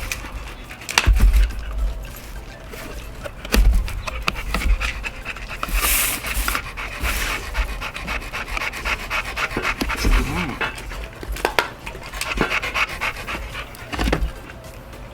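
A dog panting rapidly close by, with a few dull low thumps.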